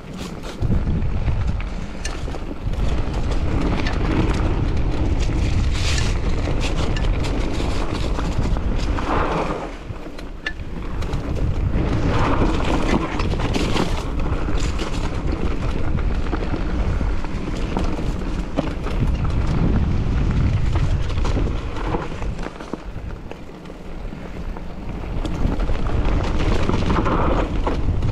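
Wind buffeting the microphone of a camera riding on a moving mountain bike: a loud, uneven low rumble that eases briefly twice, with scattered clicks and rattles from the bike over rough ground.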